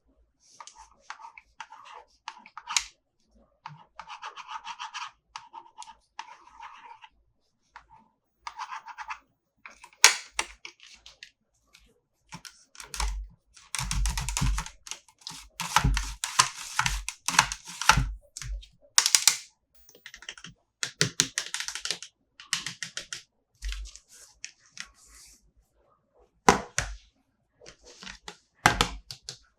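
Toy packaging and plastic toy figures handled close up: irregular clicks and taps with short stretches of scratchy rustling, and a denser run of rustling and low knocks about halfway through.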